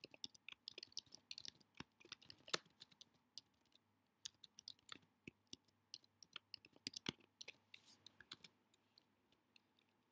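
Typing on a computer keyboard: quick, irregular key clicks, pausing briefly about four seconds in and thinning out near the end.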